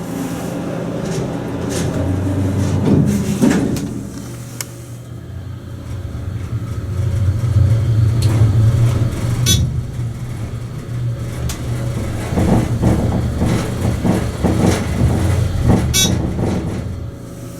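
Hydraulic elevator riding down: a steady low hum that grows louder for a few seconds in the middle, with a few sharp clicks and rattles.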